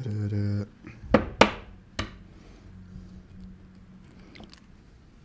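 A person humming a held, wavering tune that breaks off, then three sharp knocks on a hard surface in quick succession, the first two the loudest, followed by faint clatter.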